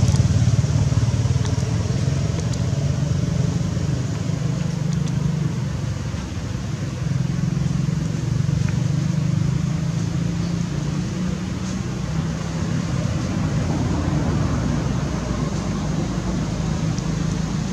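Steady low rumble of a running motor vehicle engine, holding at an even level throughout.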